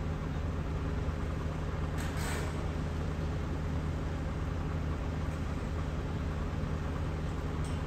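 Hydraulic excavator's diesel engine running steadily, with a brief hiss about two seconds in.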